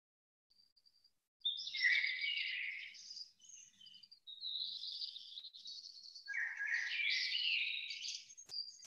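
Birds chirping and singing in several bursts, starting about a second and a half in, with a short click near the end.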